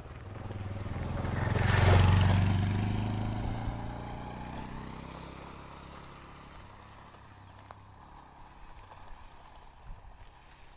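A motor vehicle passing by: its engine sound builds to its loudest about two seconds in, then fades away slowly over the next several seconds.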